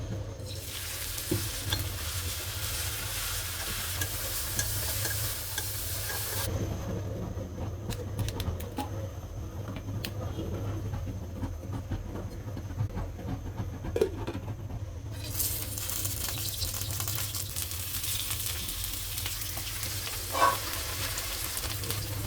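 Food frying in a pan: a steady sizzle with a utensil stirring and clicking against the pan. For several seconds in the middle the sizzle drops away abruptly, leaving only scattered clicks and knocks, then it returns.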